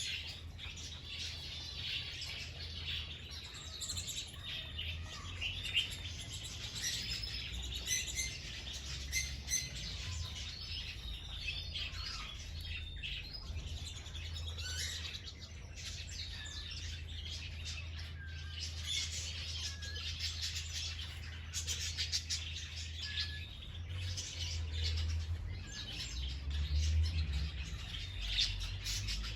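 Many small birds chirping and twittering, a dense, continuous chorus of short overlapping calls, over a steady low rumble.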